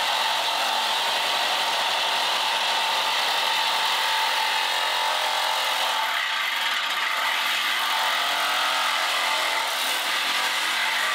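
Handheld grinder cutting into the steel side rail of a 1936 Ford frame: a steady, unbroken grinding noise of wheel on metal.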